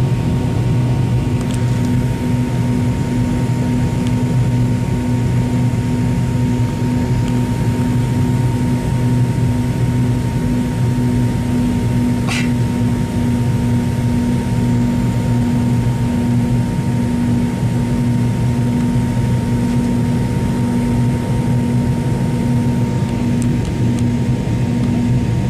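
Cabin noise inside a McDonnell Douglas MD-80 airliner climbing after takeoff: the steady drone of its rear-mounted Pratt & Whitney JT8D turbofans and airflow, with a low hum and a thin steady whine. A brief faint click about halfway through.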